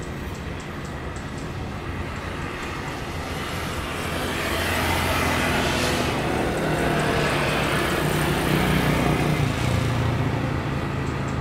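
Twin jet engines of an Airbus A350-900 airliner running at taxi thrust as it rolls slowly past. The engine noise swells from about four seconds in as the aircraft turns nose-on, with the loudest hiss at that point, then stays loud as a rumble.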